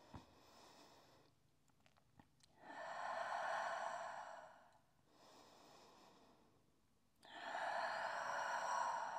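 A woman's slow, audible yoga breathing: two full breaths, each a fainter breath of about a second followed by a longer, louder breathy rush of about two seconds.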